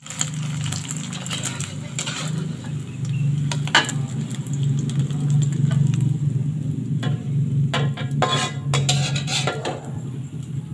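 Metal spatula scraping and knocking against a wok as an omelette fried in oil is turned and lifted out, with the oil sizzling. Sharp clinks come scattered through, several close together in the second half, over a steady low hum.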